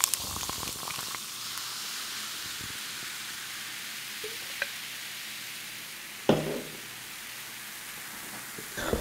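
Clearly Canadian strawberry soda fizzing over ice in a glass: a steady carbonation hiss with a few crackles at the start. A single sharp knock about six seconds in.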